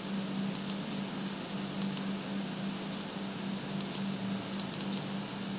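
Computer mouse clicking about ten times, mostly in quick pairs, over a steady low hum and hiss.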